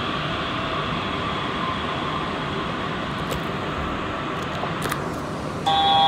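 Running noise inside a Yurikamome rubber-tyred automated guideway train: a steady rumble and hiss that eases slightly as the train slows into a station. Near the end a steady electronic chime of several held tones starts, signalling the doors opening.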